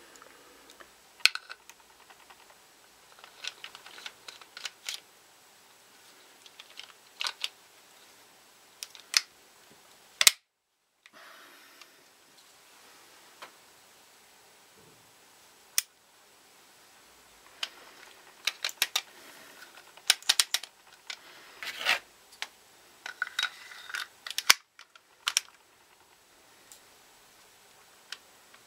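Irregular sharp metallic clicks and clacks of Ruger 22/45 Lite pistol parts being handled and fitted together, some single and some in quick clusters. The sound cuts out briefly twice.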